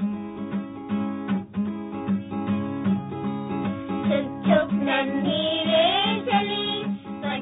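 Instrumental interlude of a children's song: a strummed guitar accompaniment keeps a steady rhythm, and a higher wavering melody line joins over it about four seconds in.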